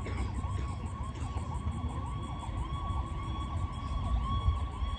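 Wind rumbling on the microphone, with a faint warbling tone over it that rises and falls several times a second.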